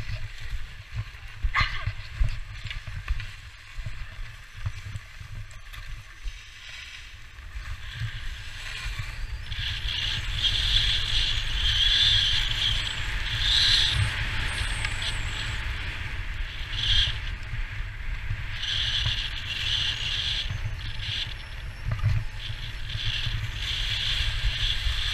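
Wind rumbling on an action camera's microphone, with skis hissing and scraping over packed snow on a downhill run. The hiss gets louder from about ten seconds in.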